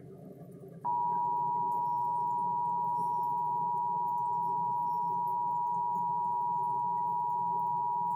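Emergency Alert System attention signal coming from a TV's speaker: a steady two-tone alert tone near 1 kHz (the standard 853 and 960 Hz pair). It starts about a second in and holds unchanged for about eight seconds, the signal that an emergency alert message, here a flash flood warning, is about to be read.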